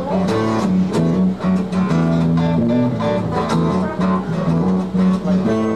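Acoustic guitar strumming chords in a steady rhythm during an instrumental passage of a live song, with no vocals.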